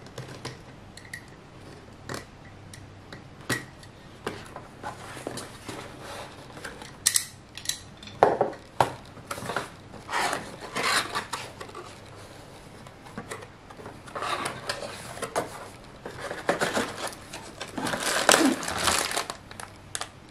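A cardboard box being opened and unpacked by hand: scrapes, taps and clicks of cardboard, then rustling and clinking of plastic bags of small plastic bricks in the second half.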